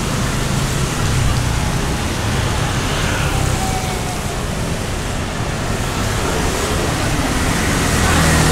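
City street ambience: steady traffic noise with a low rumble and an even hiss, and a faint background of voices.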